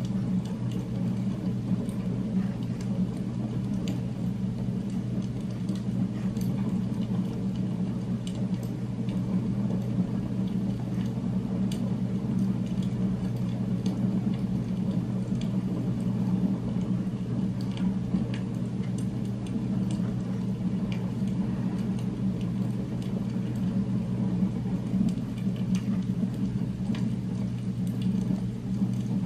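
Steady low rumbling hum of an added ambient background-noise track, unchanging throughout, with faint light scratches of a ballpoint pen writing on paper.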